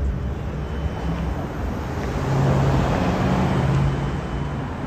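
Street traffic: a motor vehicle passing close, its engine hum and tyre noise swelling about two seconds in and easing off near the end.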